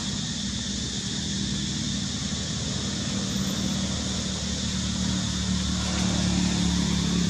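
A steady low engine-like hum, like a motor idling nearby, growing a little louder in the second half, over a steady high-pitched hiss.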